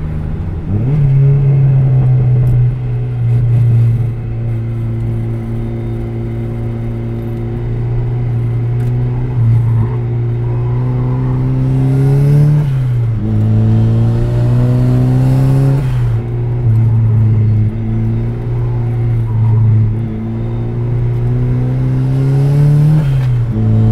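Turbocharged 1990 Mazda Miata's 1.6-litre four-cylinder engine under hard driving, heard from inside the cabin. Its note climbs slowly in pitch, then drops abruptly several times as the revs fall and build again.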